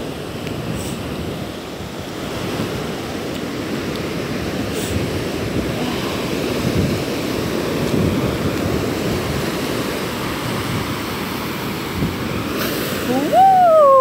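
Ocean surf washing over shallow water and sand, a steady rush. Near the end a person's voice calls out loudly, falling in pitch.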